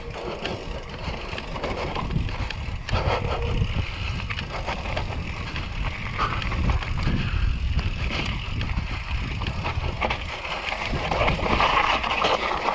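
YT Capra full-suspension enduro mountain bike descending a dirt trail: tyres rolling over dirt, roots and stones, with the bike rattling over bumps and a steady low wind rumble on the microphone. It grows louder and harsher in the last couple of seconds as the trail turns stony.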